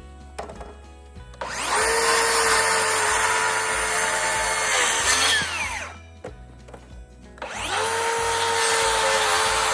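Electric power saw run twice: the motor spins up to a steady whine, runs about three and a half seconds, then winds down with a falling pitch. After a short pause it spins up again and keeps running.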